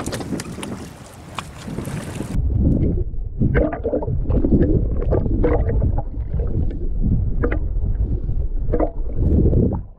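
Wind and water splashing at the side of a boat, where a hooked fish is being pulled to the surface. About two seconds in, the sound turns abruptly muffled as a camera under the water picks up a dull rumble with repeated bubbling bursts of moving water.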